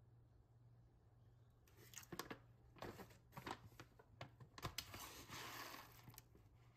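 Dried roasted grain-tea pieces tipped from a wooden scoop into an empty stainless steel pot, clicking and pattering on the metal in a few short spills, with some soft rustling.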